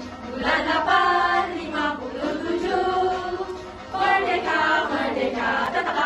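Music with a choir of voices singing, part of a Malay patriotic National Day song, with a short dip about four seconds in.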